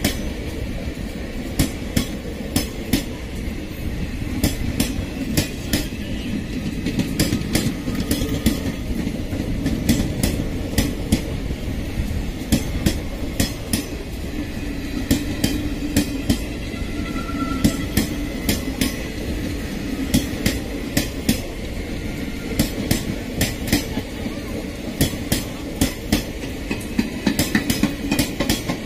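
Indian Railways express passenger coaches rolling past close by, their wheels clacking over rail joints in quick pairs and clusters over a steady low rumble.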